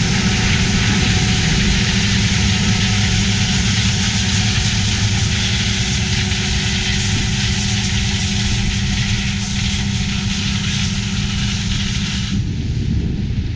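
Diesel engine of large harvest machinery running steadily under work, a steady hum over a wide whirring hiss. The sound changes abruptly near the end.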